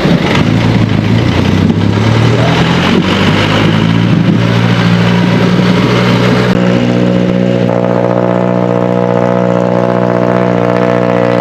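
A vehicle engine running, its pitch wandering up and down at first. About six and a half seconds in it changes abruptly to a steady, even hum.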